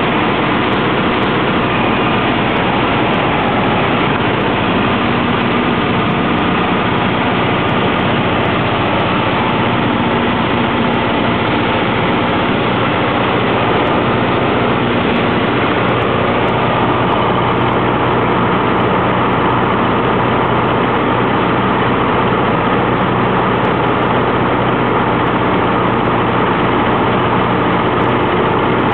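Cessna 152's four-cylinder Lycoming O-235 engine and propeller droning steadily, with a constant rushing noise over it.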